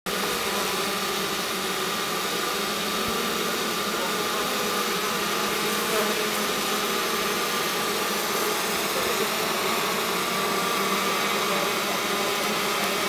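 Honeybees buzzing steadily as they fan their wings with Nasonov glands exposed, spreading the orientation scent that calls other bees to the nest entrance.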